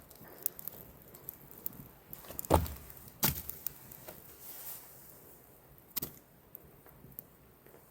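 Scattered snaps, knocks and rustles of twigs and dry leaves being handled and broken for kindling, the loudest strikes about two and a half, three and six seconds in.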